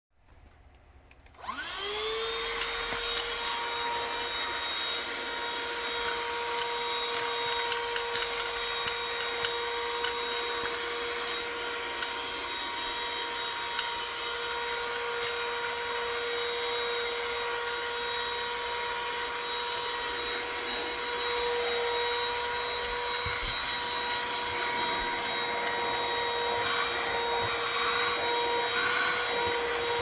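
Fityou cordless handheld vacuum cleaner switching on about a second and a half in, its motor whine rising quickly and then running as a steady hum with a rush of air.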